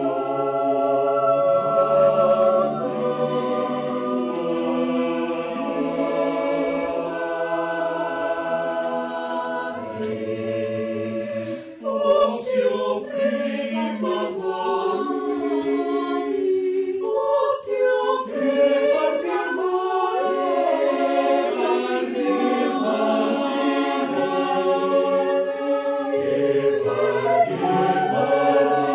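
Mixed choir of men's and women's voices singing a cappella in several parts. Long held chords; about twelve seconds in the singing briefly breaks off and moves into a quicker passage of short notes, then settles back into held chords.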